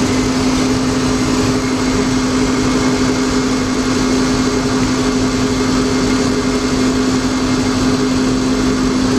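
Ford 5.4-litre V8 in a 2004 Lincoln Navigator idling steadily with the number 3 ignition coil unplugged, running with a pronounced misfire as that cylinder drops out.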